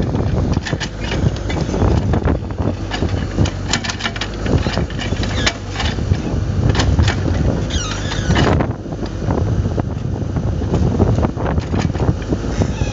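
Compact excavator's diesel engine running steadily as the hydraulically driven cone splitter bores into knotty beech, with many sharp cracks of the wood splitting. A brief wavering squeal comes about eight seconds in.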